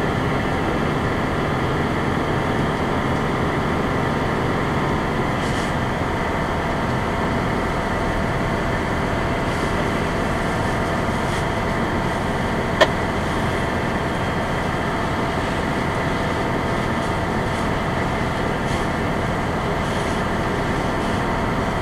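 Fire engine's engine running steadily, heard from inside the cab, with one sharp click about 13 seconds in.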